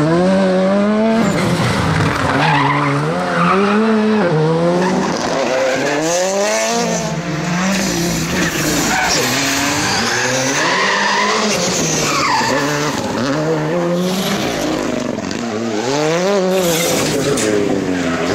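Rally cars' engines revving hard, the pitch climbing and dropping again and again through gear changes and lifts, with tyres squealing and skidding as the cars slide through bends.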